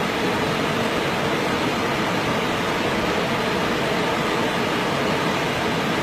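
Steady rush of water pouring down a waterfall.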